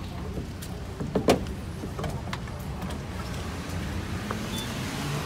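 A few sharp clicks and knocks, about a second in, from a gas pump and its nozzle being handled, over a steady low hum and the hiss of heavy rain.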